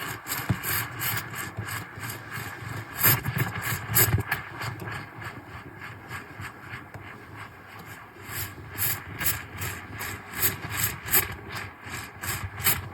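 JASSY espresso machine running, a continuous mechanical noise with uneven surges and rapid flutters, loudest a few seconds in and again in the second half.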